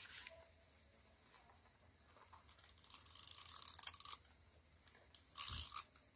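Double-sided tape runner drawn along paper, a quiet crackly rasp that builds for about a second, then a short louder rustle of the paper being handled and pressed down near the end.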